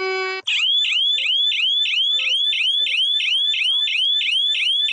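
Electronic emergency-alert alarm tone: a loud, high, rising chirp repeated about three times a second. It starts about half a second in, just after a steady buzzing tone cuts off.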